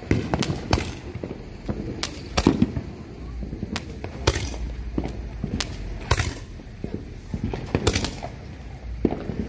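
Fireworks going off: a string of sharp, irregular bangs and cracks, some louder than others.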